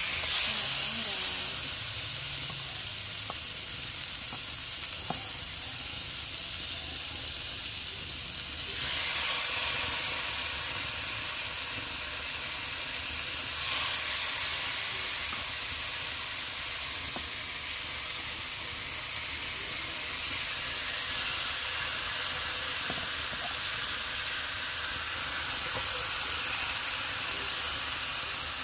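Gourami fish pieces coated in margarine sizzling on a hot nonstick grill plate, a steady hiss that swells near the start and again about nine and fourteen seconds in.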